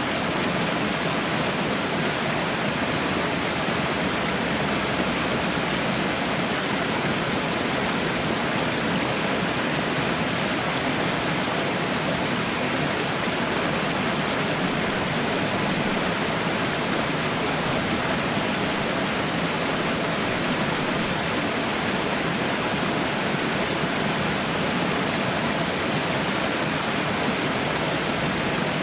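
Waterfall rushing in a steady, unbroken roar of water.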